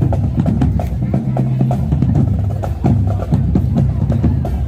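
High school marching band playing: drums striking a busy rhythm over sustained low brass tones.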